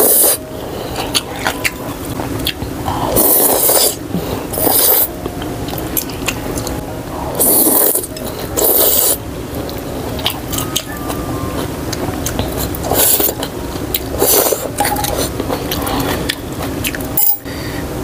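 Noodles being slurped from a bowl of bún bò, about seven short, loud, hissing slurps, with chewing and small wet mouth clicks between them.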